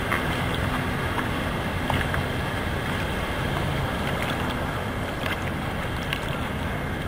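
Steady rush of ocean water and breaking surf, with wind buffeting the microphone.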